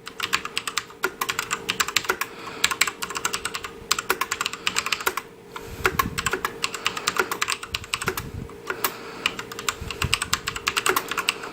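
Rapid typing on a 1st Player Black Sir mechanical keyboard, which its owner believes has black switches: dense clacking keystrokes with a brief lull about halfway through.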